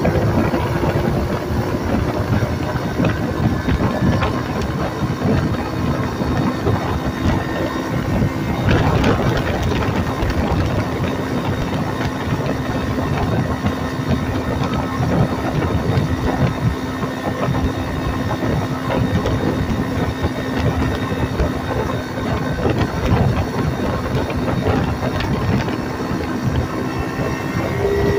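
Small four-stroke Phatmoto engine on a motorized bicycle running steadily at cruising speed, a constant hum under a heavy rush of wind and road noise.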